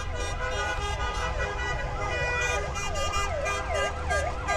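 Siren-style wailing from the sound units on passing light-up vans: a tone sweeping up and down in pitch, the sweeps quickening to about two a second in the second half, over steady electronic tones and low engine rumble.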